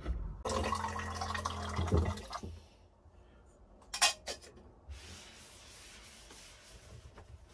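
Water being poured into a container at a camper-van kitchen counter, with a steady low hum for the first two seconds or so and a short clatter about four seconds in.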